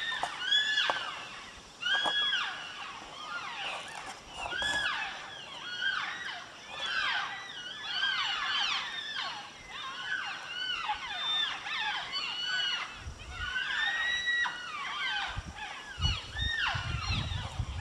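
A chorus of many animals calling at once: short, high cries that rise and fall in pitch, overlapping one another throughout. A low rumble joins near the end.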